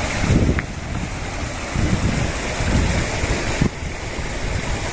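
Shallow stream running over rocks beside a small waterfall, with wind gusting on the microphone and the splashing of people wading through the water.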